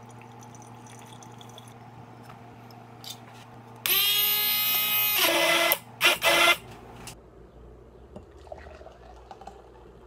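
A small handheld electric blender whirs in a glass jar of milky coffee for nearly two seconds, its motor pitch rising briefly as it starts, then runs in two short bursts. Before and after, pour-over coffee drips faintly into a glass carafe over a steady low hum.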